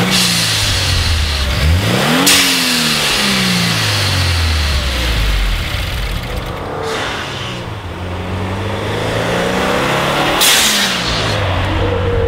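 2015 Subaru WRX's turbocharged 2.0-litre flat-four accelerating up through the revs and shifting, with a Go Fast Bits dual-port blow-off valve venting a sharp whoosh at each lift-off: once about two seconds in and again near the end.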